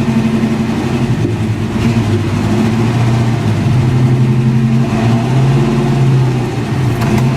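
1963 Chevrolet C30 one-ton truck's engine running at low revs while the truck creeps along, the engine note swelling slightly about four seconds in.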